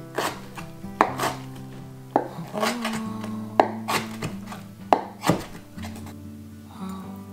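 Kitchen knife chopping soaked wakame seaweed on a wooden cutting board: an uneven series of sharp knocks, roughly one or two a second, as the blade meets the board. Soft background music plays underneath.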